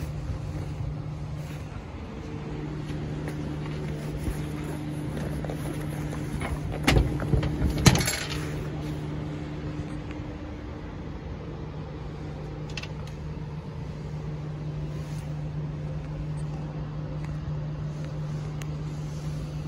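1986 Jeep CJ7's engine running at a steady idle, heard from inside the vehicle as an even hum. A few sharp knocks come about seven to eight seconds in.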